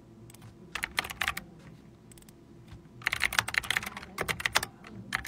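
Typing on a computer keyboard: a few keystrokes about a second in, then a fast run of typing from about three seconds in until near the end.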